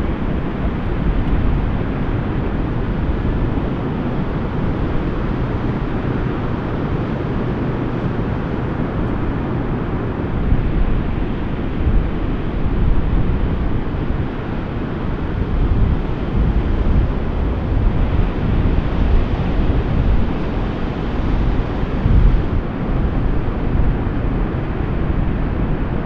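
Steady roar of breaking ocean surf, with wind rumbling and buffeting on the microphone.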